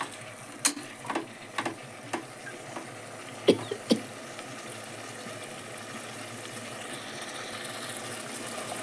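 Steel spatula clacking and scraping against an aluminium pressure cooker as potato wedges are stirred: a handful of sharp knocks in the first four seconds, the loudest about three and a half seconds in. Behind and after them, the potatoes sizzle steadily in oil and tamarind water.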